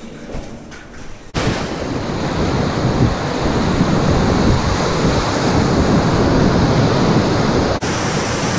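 Whitewater rapids on the White Salmon River rushing and churning around a packraft, loud and steady. The sound cuts in suddenly about a second in and dips briefly near the end.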